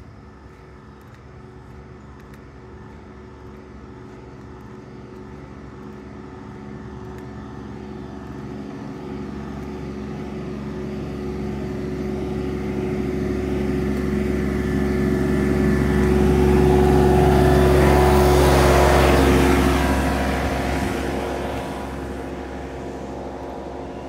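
A motor vehicle's engine drone building slowly for about eighteen seconds as it approaches, peaking as it passes, then fading over the next few seconds.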